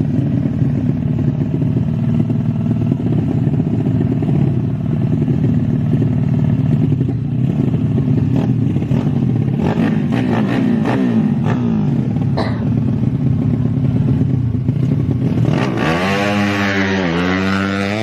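Tuned small underbone motorcycle engines running loudly. About sixteen seconds in, one is revved hard up and down several times.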